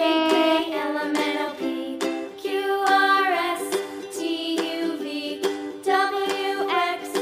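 Background music: a light song with a melody line over a steady beat.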